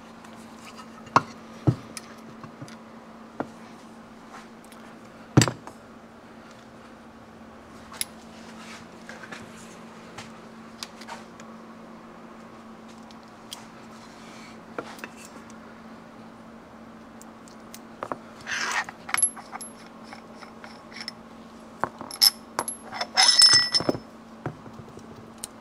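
Metal tools and puller parts knocking and clinking against an aluminium motorcycle crankcase and the workbench while a crankshaft puller is set up to draw the crankshaft into the case. There are sharp knocks early, the loudest about five seconds in, then two clusters of ringing metal clinks near the end, over a steady low hum.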